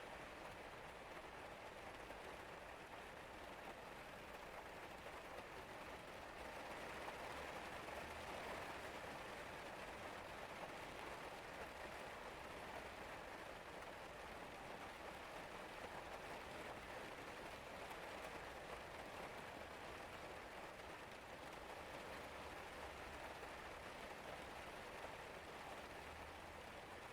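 Steady rain falling, an even wash of drops that grows slightly louder about seven seconds in.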